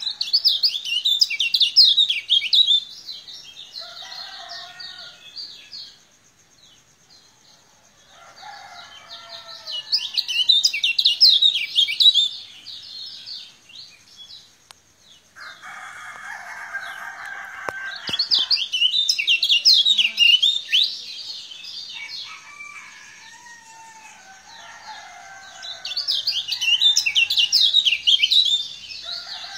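Caged Lombok kecial kuning singing: four bursts of rapid, high-pitched chattering song, each about two to three seconds long and roughly eight seconds apart, with fainter lower bird calls in the gaps.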